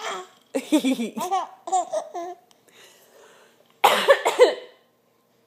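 A baby laughing in a run of short high-pitched bursts, followed about four seconds in by a short harsh cough-like noise.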